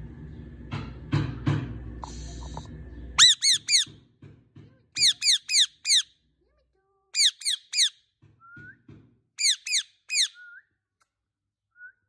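Rose-ringed parakeet (Indian ringneck) giving loud, harsh screeching calls in quick bursts of three or four, starting about three seconds in and repeating four times, with a few soft, short rising chirps between the bursts.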